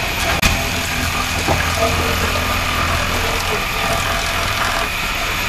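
Belt-driven circular saw running and ripping a wooden plank lengthwise, with a steady low hum and a steady high whine; a sharp knock about half a second in.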